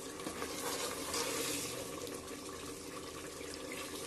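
Tomato and spice masala frying in oil in an aluminium pressure cooker, a steady sizzling hiss, with a metal ladle stirring and scraping the pot now and then. The oil has separated and come to the top: the masala is nearly fully fried.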